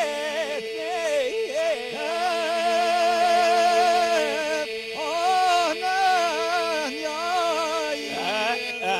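Albanian iso-polyphonic folk singing in the Skrapar style: the group holds one steady drone note while a lead voice sings an ornamented, wavering melody above it in short phrases.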